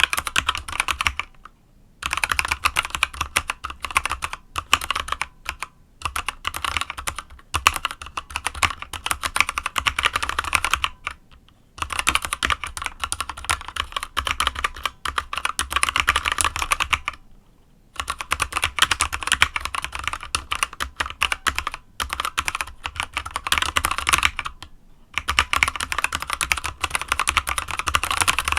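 Fast continuous typing on a mechanical keyboard with unlubricated Kailh Box Dark Yellow switches, a dense run of key clacks broken by short pauses every few seconds.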